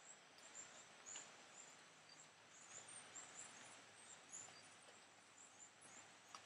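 Near silence: faint jungle ambience, with soft high-pitched chirps repeating irregularly about twice a second over a quiet hiss.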